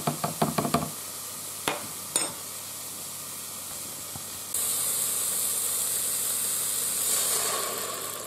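Metal spoon clinking quickly against a glass measuring cup while stirring broth, then two single taps, over a faint sizzle. About four and a half seconds in, a louder hissing sizzle of mushrooms sautéing in the Aroma multicooker's nonstick pot takes over, with broth being poured in near the end.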